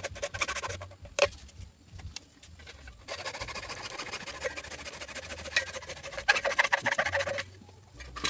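Hacksaw cutting through a plastic pipe, a fast rasping run of back-and-forth strokes. The sawing stops about a second in and starts again about three seconds in, then stops shortly before the end as the piece is cut off.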